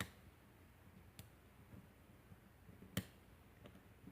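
Faint metal clicks and small scrapes of lock picks working in a pin-tumbler lock cylinder, with three sharper clicks, the loudest about three seconds in.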